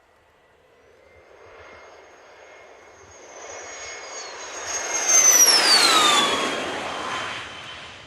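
Cessna Citation CJ2 business jet with twin Williams FJ44 turbofans flying past. A high whine and roar build, peak about five seconds in, and the whine drops sharply in pitch as the jet goes by, then fades.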